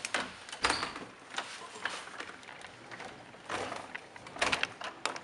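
Window being handled and shut by hand: a series of irregular knocks and clicks from the frame and handle, with the loudest strikes just after the start and again in a cluster near the end.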